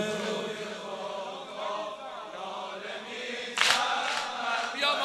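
Soft wordless chanting or humming from male voices behind a Shia mourning lament (noha), with a sharp sound about three and a half seconds in. A singing voice comes back near the end.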